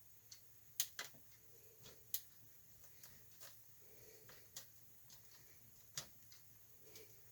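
Scattered sharp clicks and taps, about half a dozen at uneven intervals, from hand tools working at a stuck part on an 8 3/4 differential carrier.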